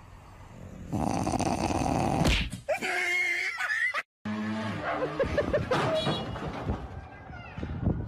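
A dog making a loud, rough, noisy vocal sound about a second in, followed by a wavering, higher-pitched cry. It cuts off suddenly and gives way to a different scene with shorter pitched calls.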